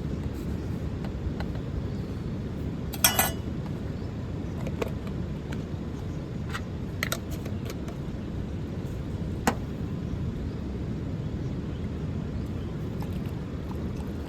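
A steady low rumble with a few sharp clinks. The loudest clink, about three seconds in, rings briefly.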